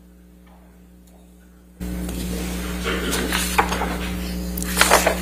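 Quiet room tone. About two seconds in, a courtroom microphone feed cuts in suddenly with a steady electrical hum and room noise, and a few faint knocks or rustles.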